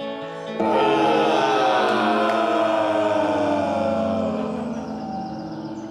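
Live rock band playing: about half a second in, a loud held chord and a sung note come in together, sliding slowly down in pitch and fading away.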